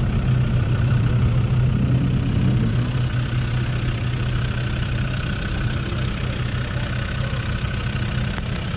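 Vehicle engine idling steadily, heard from inside the car's cabin.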